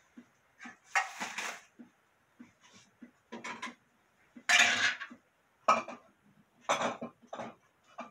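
Dishes and utensils clattering in a kitchen: a string of short, irregular knocks and clinks, the loudest about halfway through.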